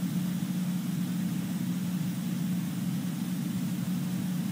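Room tone in a quiet hall: a steady low hum with a faint hiss above it, unchanging throughout.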